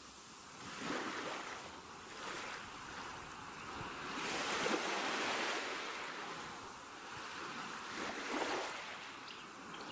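A rushing, surf-like noise that swells and fades every two to three seconds.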